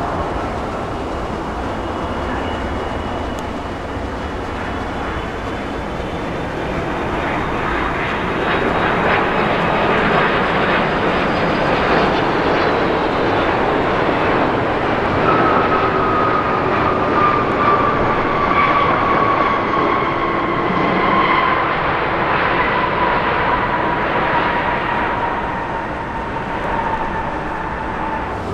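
Jet roar of an Airbus A330-323 airliner's twin Pratt & Whitney PW4000 turbofans, growing louder about eight seconds in, with a whine that slowly falls in pitch through the second half.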